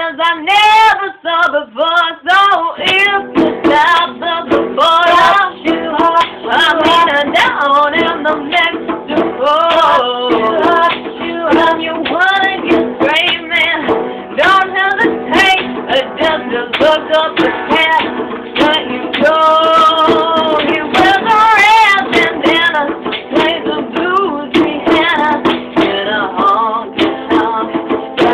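Female and male voices singing a song together over a guitar accompaniment, as a home cover performance.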